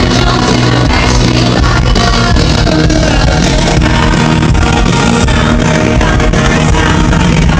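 Live pop-rock concert music: a band playing loud with voices singing over it, heard from the audience in a large hall.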